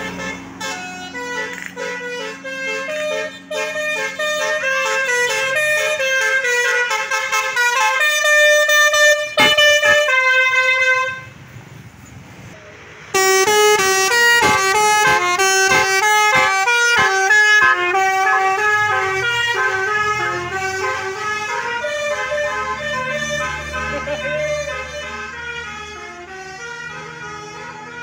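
Multi-tone musical 'telolet' air horn playing a quick melody of short stepped notes. It cuts off about 11 seconds in, starts again sharply two seconds later, then fades near the end.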